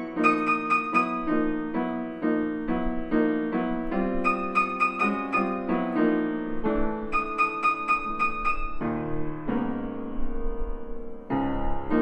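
1897 Chickering 109C grand piano, with its original recrowned soundboard, being played: a quick repeated figure of mid-range notes under higher melody notes. The playing settles on a held chord about nine seconds in and picks up again near the end.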